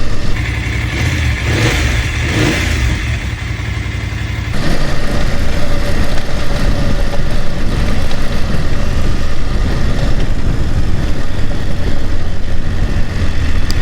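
BMW F750GS parallel-twin engine running under way, with a steady low rumble and rushing air. The engine's mechanical noise is normal for this motorcycle. The sound changes abruptly about four and a half seconds in.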